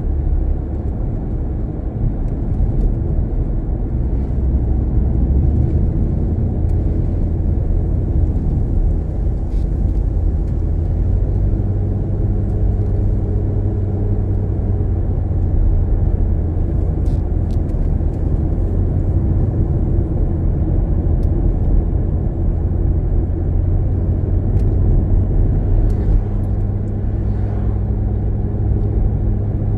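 A car driving along a road: a steady low rumble of engine and tyre noise, with a faint engine hum that comes in partway through, fades, and returns near the end.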